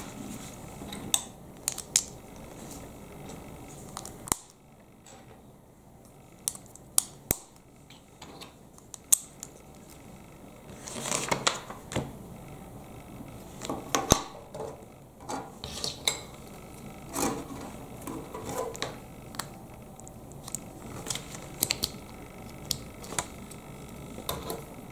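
Plastic Lego bricks being handled and pressed together: irregular sharp clicks and snaps, with a few short bursts of rustling as pieces are moved.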